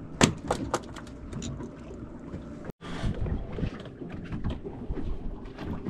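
Steady wind and water noise around an open fishing boat, with a few sharp knocks in the first second and a brief break a little before the middle.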